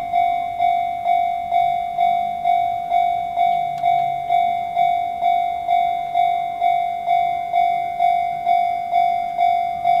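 Japanese electronic level-crossing alarm of the Chichibu tone type, dinging steadily at about two strokes a second. It is warning of an approaching train while the crossing barriers come down.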